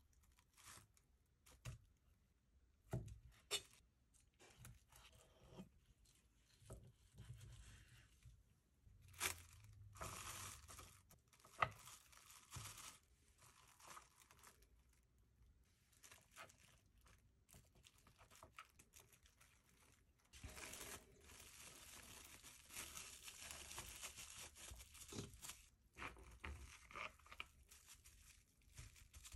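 Plastic cling film crinkling and rustling as food is packed into a plastic mold and wrapped, with scattered light taps and clicks. A longer stretch of steady crinkling comes about two-thirds of the way through.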